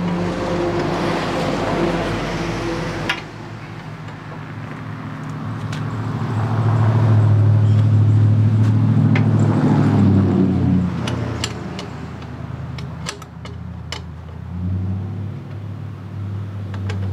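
Pressure washer running, its jet spraying the side of a boat hull. The machine's hum swells louder from about five seconds in and eases off after about ten seconds, with a few sharp clicks near the end.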